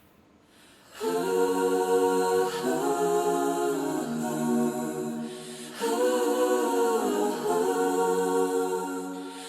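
Wordless vocal intro: voices holding long chords in close harmony, entering about a second in and moving to a new chord every couple of seconds.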